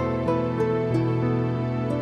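Slow, sad-sounding instrumental music, an instrumental break in a song: held chords under a melody that steps to a new note about every third of a second.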